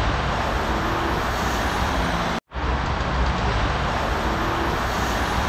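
Steady city street traffic noise, the dense rumble of cars and buses going by. It cuts out for a split second about two and a half seconds in, then resumes.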